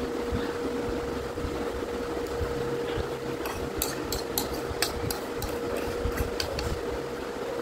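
A fork clicking and scraping against a plastic bowl while noodles are twirled, a string of sharp, irregular clicks in the second half, over a steady hum.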